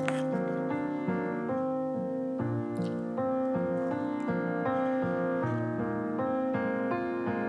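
Background piano music: a slow, gentle instrumental with sustained notes at an even level.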